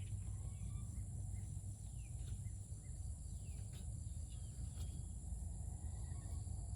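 Outdoor garden ambience: small birds calling in short, falling chirps over a steady high-pitched insect drone, with a low rumble underneath.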